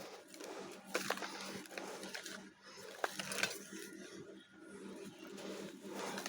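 Dry Multani Mitti (fuller's earth clay) chunks crumbling, an irregular gritty crunching with a few sharp cracks about one second and three seconds in.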